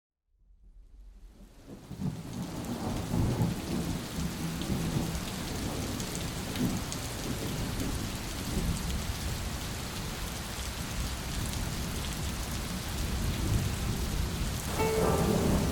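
Heavy rain fading in from silence over the first couple of seconds, then falling steadily with a low rumble of thunder underneath.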